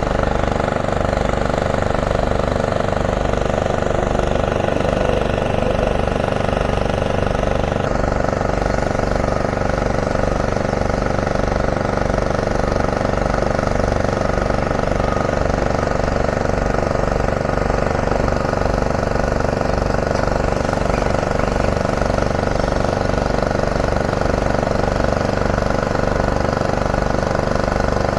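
Heavy diesel demolition plant, a rock crusher and excavators, running steadily as one constant engine drone with a low rhythmic throb.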